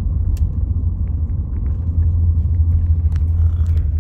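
Low, steady rumble of a hybrid car being driven, heard from inside the cabin, with a few faint ticks.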